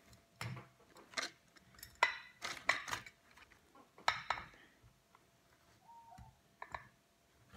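Clinks and knocks of a glass storage jar and its lid being handled while a small rubber seal is fitted onto it: a string of sharp strikes in the first four seconds and one more near the end.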